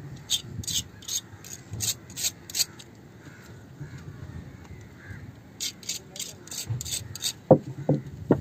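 Hands rubbing and fiddling with a metal jig lure and fishing line, with two sharp clicks near the end. Behind it run short high-pitched pulses, about three a second, in two runs with a gap between.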